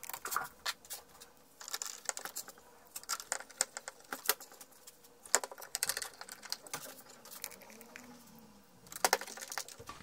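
Screwdriver driving screws into a printer's plastic frame to fasten the service-station unit, with irregular small clicks and ticks of the bit and the plastic parts being handled.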